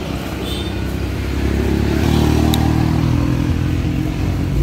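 A motor vehicle passing on the road, its engine swelling to its loudest about two seconds in and then fading.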